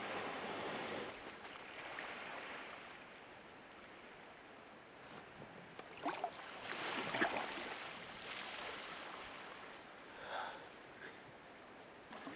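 Humpback whale breathing at the surface: a few faint, breathy whooshes, the loudest about six to seven seconds in.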